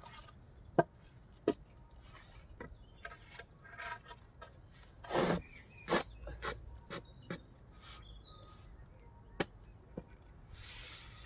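Knocks and rubbing of timber being handled and fitted: a string of sharp separate wooden knocks, with a longer scraping rub about five seconds in.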